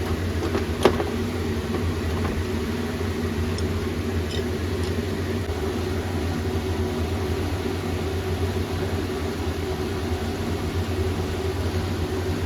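A steady low mechanical hum from a running machine, with a single light click about a second in.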